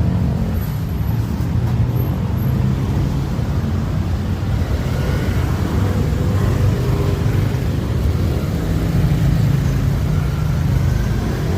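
Street traffic: cars running and passing close by, a steady noise with most of its weight low down.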